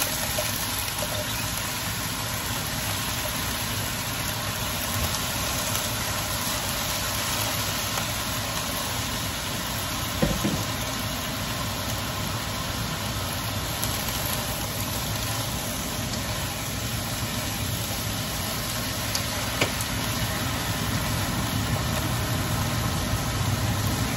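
Steady hum and hiss of a stove with shredded cabbage cooking in a wok, with a couple of faint knocks about ten seconds in and near the twenty-second mark.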